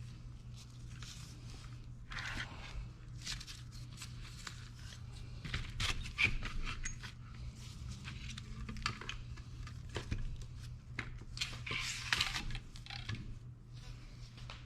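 Irregular light clicks, scrapes and rustling of hand work on parts and tools at a bench, over a steady low hum.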